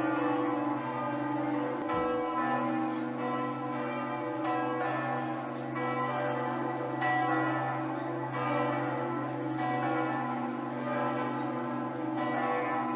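Bells ringing, with new strikes roughly once a second over a sustained low tone.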